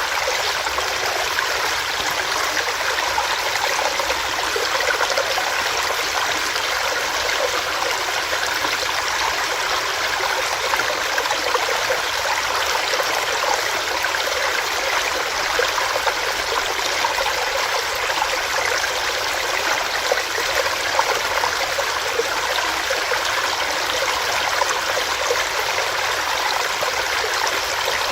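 Small rocky stream running over rocks, a steady rushing and splashing of water.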